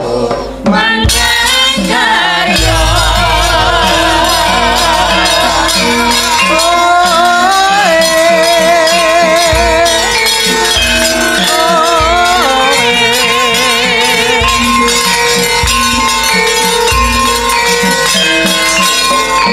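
Javanese gamelan music with a female sinden singing a melody with heavy vibrato over it. Saron metallophones and a drum keep the beat, with the full ensemble coming in about a second in.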